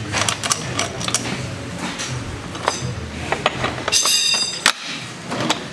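Scattered metallic clinks and knocks of hand tools being worked around an enduro bike's rear wheel, with a brief high-pitched squeak about four seconds in.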